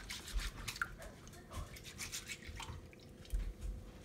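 Brown rice being scrubbed by hand in water in a rice-cooker inner pot: irregular gritty rubbing strokes with small splashes and drips.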